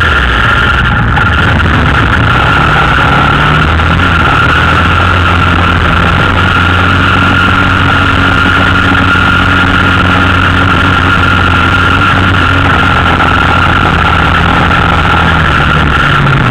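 Yamaha Raptor 250 quad's single-cylinder four-stroke engine running loudly at a fairly steady speed while riding, close to the frame, with a constant high whine above the engine note.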